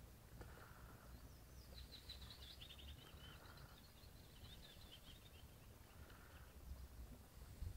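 Near silence with a faint small bird singing a quick run of high chirps and trills, from about a second in until about five and a half seconds, over a faint low rumble.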